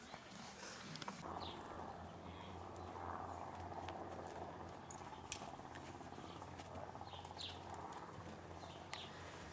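Outdoor ambience: a steady low hum from an unseen source, with a few short bird chirps and a single sharp click about five seconds in.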